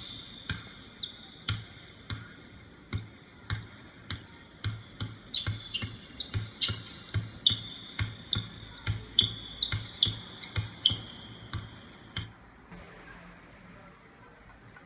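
Basketball dribbled hard on a hardwood court, about two bounces a second with a sharp thud each time and a high ringing tone alongside; the dribbling stops about twelve seconds in.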